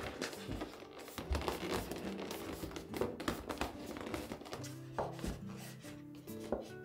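A stiff paper shopping bag being folded and creased by hand, its paper crinkling and crackling in short bursts of handling noise. Background music with held notes plays underneath.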